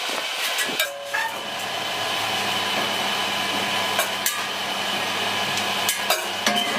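Steady factory machinery noise with a few sharp knocks.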